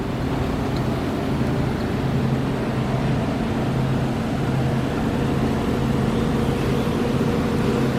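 APS Gold Flow GF-12HC reflow solder oven running while powered up: a steady whir from its cooling fans, with a low electrical hum underneath.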